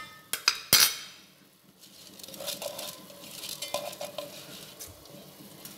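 Soaked rice being tipped into boiling water in an aluminium pot. A few sharp knocks of utensils against the pot and bowl come within the first second, then the boiling water bubbles softly with a few faint clinks.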